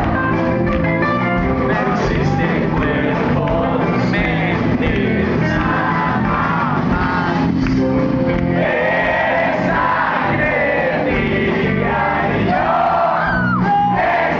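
Rock band playing live with a lead singer, guitars and drums, heard from within the audience in a large hall, with crowd noise mixed in.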